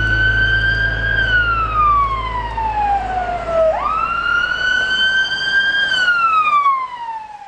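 Emergency vehicle siren wailing, heard twice: a quick rise in pitch, then a slow falling sweep. It gets quieter near the end.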